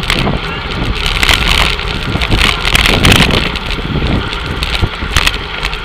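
Wind buffeting the microphone of a camera riding in a bunch of racing bicycles, over a steady rumble of tyres on the road, with a couple of louder hissy gusts in the middle.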